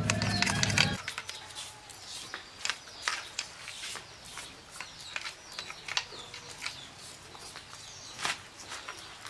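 A low steady hum cuts off abruptly about a second in. After it come light ticks and scrapes of a small brush and metal parts on a rickshaw differential's ring gear as oil is dabbed on, with chicks or birds chirping.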